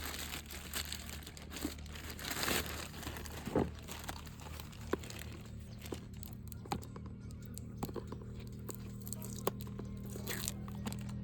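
Packaging being torn open and crinkled by hand, dense rustling for the first few seconds, then scattered light clicks and taps as it is handled.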